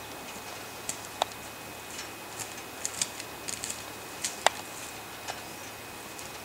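Footsteps crunching over dry pine needles and twigs, with irregular crackles and a few sharper twig snaps, the loudest about four and a half seconds in.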